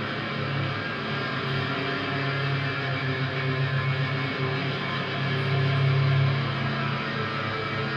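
Ambient drone music played on guitar: a steady low drone under a dense wash of sustained, overlapping tones.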